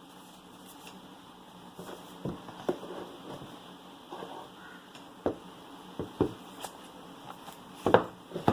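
Hands handling a phone box and its packaging: scattered light taps, clicks and rustles at irregular intervals, with the loudest knock near the end.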